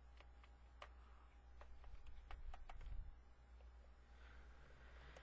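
Faint, irregular clicks of a small screwdriver working the screws out of a laptop's bottom cover plate, a few sharp ticks in the first three seconds, then a faint hiss.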